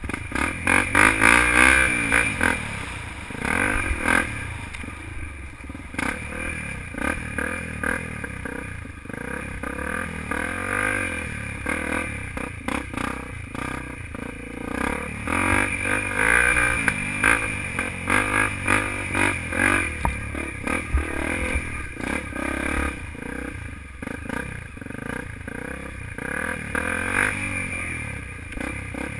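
Dirt bike engine revving up and down as the rider opens and closes the throttle through the turns, heard from the rider's helmet.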